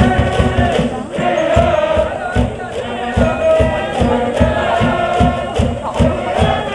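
High school brass band playing a baseball cheer song over a steady drum beat, with the cheering section chanting along.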